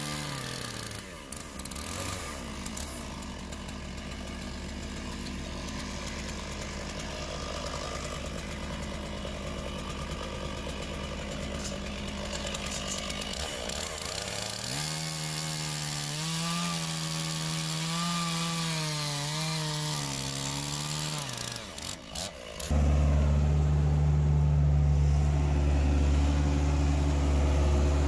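Stihl chainsaw cutting through a cherry log, then running out of the cut with a steady, wavering pitch. About three quarters in it gives way abruptly to a skid steer's engine idling steadily and louder.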